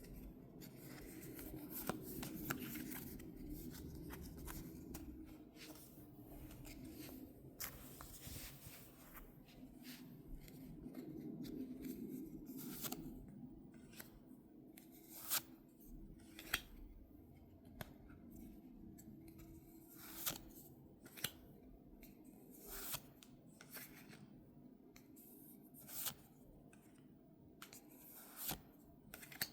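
Trading cards and box packaging handled by hand: soft rustling with scattered sharp clicks and snaps of card and plastic. The rustling thins out about halfway through, leaving separate clicks every second or two.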